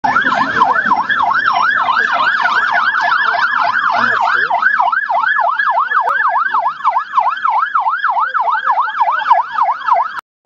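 Electronic siren wailing in a fast yelp, rising and falling in pitch about three times a second, then cutting off suddenly near the end.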